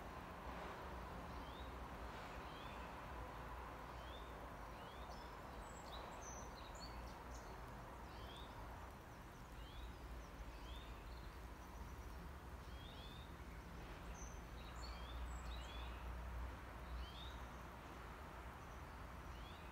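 Faint outdoor ambience of small birds chirping: short high chirps repeating roughly once a second over a steady low rumble.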